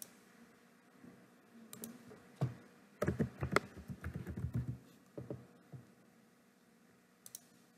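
Typing on a computer keyboard: a quick run of keystrokes about three to five seconds in, with a few single clicks before and after.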